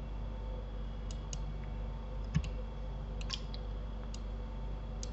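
Computer mouse clicking: about eight short, sharp clicks, several in quick pairs, over a steady low hum.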